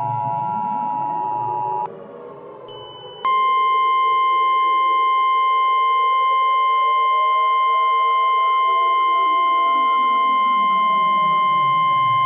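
The Emergency Alert System two-tone attention signal ends about two seconds in. Then, about three seconds in, a loud steady single-pitch weather-radio alert tone starts and holds to the end. Beneath both, a siren wails, its pitch sinking again in the last few seconds.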